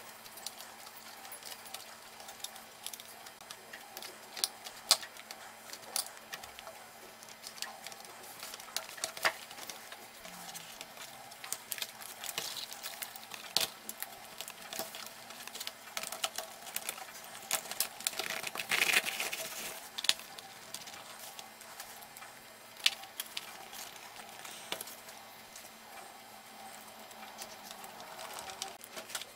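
Plastic clicks, taps and knocks of laptop case parts, keyboard and panels being handled and snapped back into place, scattered irregularly, with a longer scraping rustle a little past halfway.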